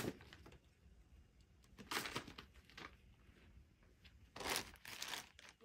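Crinkling and rustling of loose plastic and paper packaging, in a few short bursts, the longest near the end.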